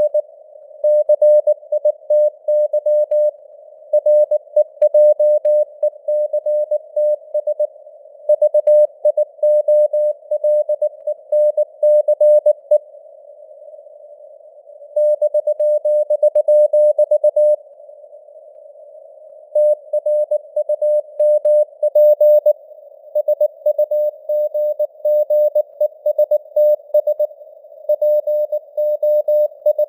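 Morse code (CW) sent at 19 words per minute: a single mid-pitched tone keyed rapidly on and off in dots and dashes, over a narrow band of simulated radio hiss. The keying pauses twice for about two seconds, leaving only the hiss.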